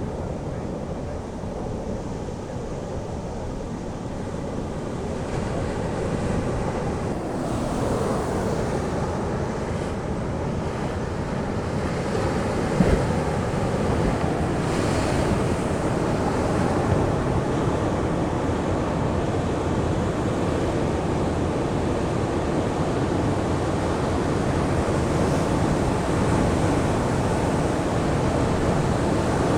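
Ocean surf washing continuously onto the beach, with wind on the microphone and a brief thump about halfway through.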